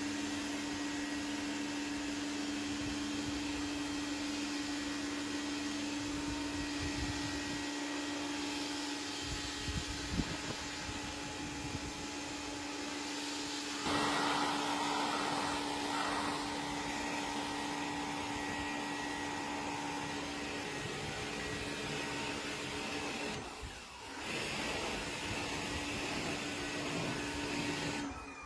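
A small electric air-moving motor, of the vacuum or blower kind used in car detailing, running steadily with a rush of air and a constant low whine. The sound changes about halfway through and dips briefly near the end.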